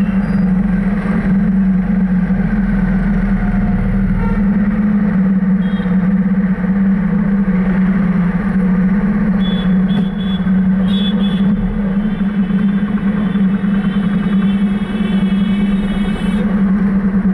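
Road vehicle running steadily in traffic, a constant loud low hum, with short higher tones around the middle and a wavering pitched tone over the last few seconds.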